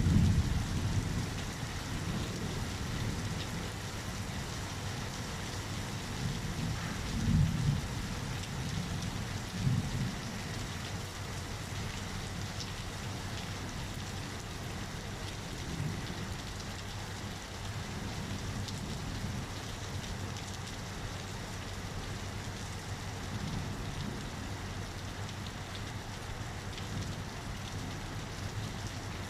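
Steady heavy rain during a thunderstorm, with low rolls of thunder: the loudest right at the start, two more about seven and ten seconds in, and fainter rumbles later.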